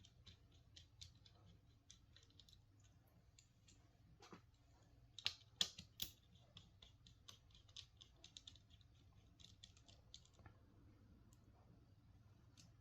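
Faint clicks and ticks of a small screwdriver working two tiny screws out of a computer mouse's plastic housing, with a few louder clicks about five to six seconds in.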